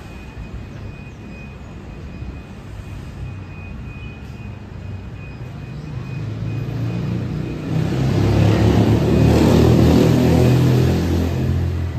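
City street traffic with a motor vehicle's engine passing close: a low engine sound that grows louder from about six seconds in, peaks a few seconds later and begins to fade near the end.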